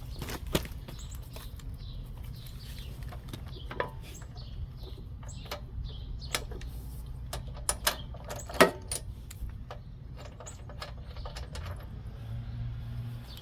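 Irregular metallic clicks and clinks of a hand tool working on the lawn mower's spark plug, over a steady low background hum.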